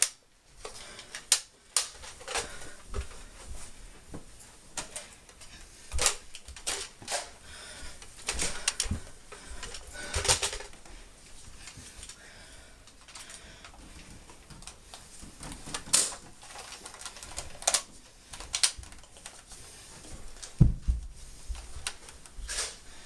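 Irregular sharp clicks and knocks from Nerf blasters being primed and fired, a dozen or so scattered across the stretch, with a heavier low knock near the end.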